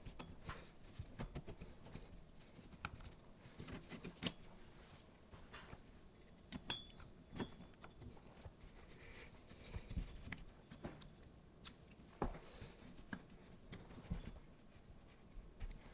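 Scattered light clicks, taps and small knocks of parts and tools being handled, with irregular gaps between them.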